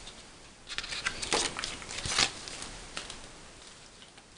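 Paper rustling as a softcover booklet's pages are handled and turned, with a few crackly strokes and a sharper tap just after two seconds in.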